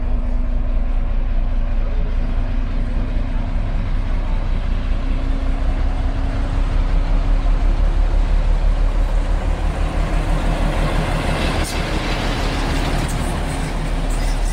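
T435-class diesel locomotive running with a steady engine drone as it approaches hauling a coach, growing louder as it nears. Near the end there is a sharp click and then a rising hiss as it passes close by.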